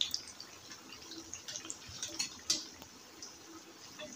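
Battered eggplant fritters sizzling and crackling as they shallow-fry in hot oil, with a few sharp clicks of metal tongs against the pan as they are turned.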